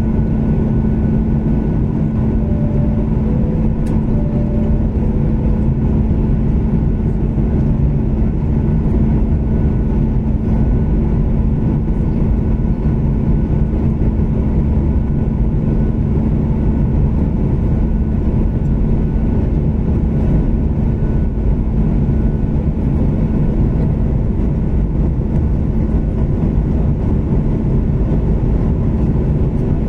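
Steady cabin noise of a Boeing 737 MAX in flight on its way down to land: the CFM LEAP-1B turbofans and rushing air make a constant rumble with a steady low hum.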